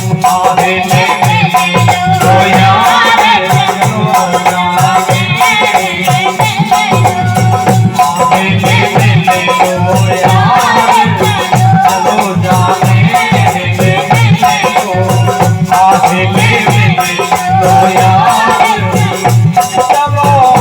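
Instrumental break in an Indian folk song: a wavering lead melody over a steady drum beat and fast rattling, shaker-like percussion.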